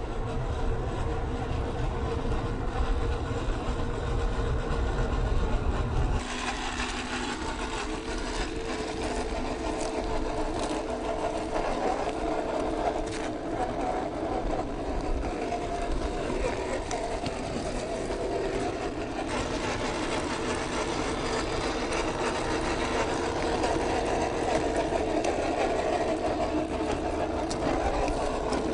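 Small electric motor and gearbox of a 1/12-scale MN128 RC Jeep whining steadily as it drives, with the tyres crunching over gravel and dirt. A heavy low rumble stops abruptly about six seconds in.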